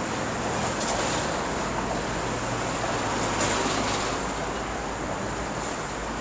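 Steady background noise, a continuous low rumble with hiss and no distinct events.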